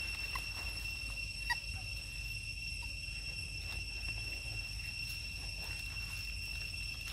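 Steady high-pitched insect drone in forest, with a few brief chirps over it, the sharpest about a second and a half in, and a low rumble underneath.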